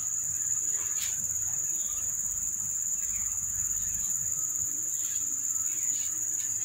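Insects chirring in one steady, unbroken high-pitched trill, with a few faint taps here and there.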